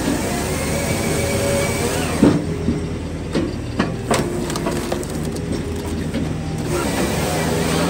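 Firewood processor running under load: its engine and hydraulics hum steadily while the saw bar cuts through a log for the first two seconds. A sharp knock follows as the cut round drops, then several clanks and knocks as the log is fed forward.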